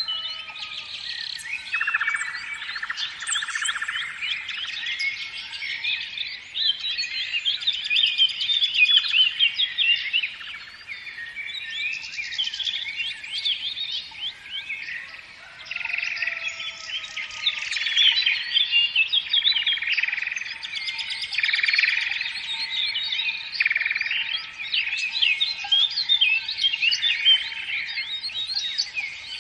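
Many small birds chirping and twittering at once in a dense chorus of quick, overlapping calls.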